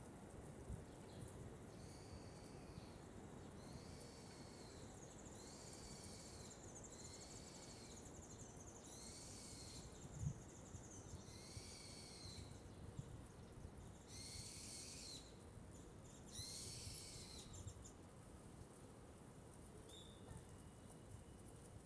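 Faint, quiet street with a bird calling again and again: short high arched chirps, about one a second, stopping a few seconds before the end. One soft low thump about halfway through.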